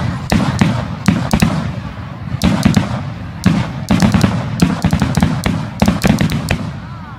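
Aerial fireworks shells bursting in quick succession: several sharp bangs a second over a low rumbling echo, thinning out near the end.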